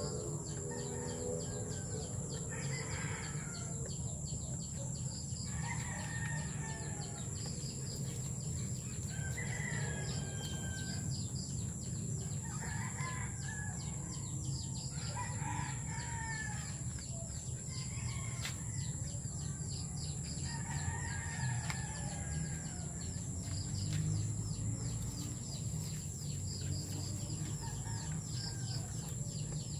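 Chickens and roosters calling repeatedly in the background, crowing and clucking, over a steady high whine and fast ticking.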